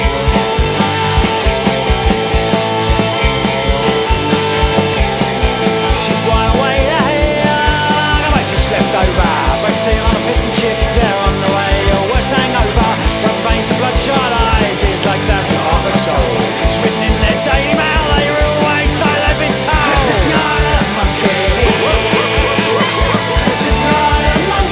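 Punk rock band playing an instrumental passage: distorted electric guitars over a fast, steady drum beat.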